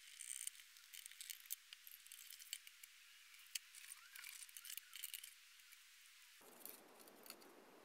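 Near silence, with a few faint clicks and ticks from a plastic graphics card fan shroud and its fan wiring being handled.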